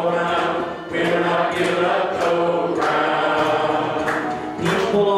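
A congregation singing a hymn together, many voices holding long notes, with brief breaths between phrases about a second in and again near the end.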